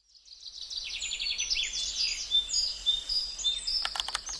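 Small birds chirping and trilling, with quick high whistles that slide up and down in pitch. Rapid clicking like keyboard typing starts near the end.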